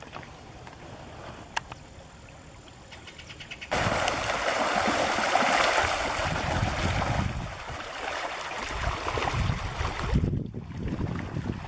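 Wetland outdoor ambience: a faint hiss with a few soft clicks, then about four seconds in a much louder, steady rushing noise cuts in abruptly and carries on, briefly dipping near the end.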